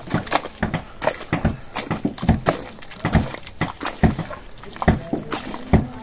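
A hoe chopping and dragging through a pit of wet mud: irregular dull thuds and squelches, about three a second.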